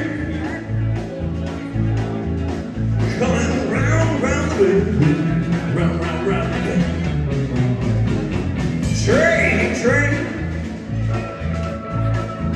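Live rock-and-roll band playing: electric guitars, electric bass and drum kit, with a steady, driving beat.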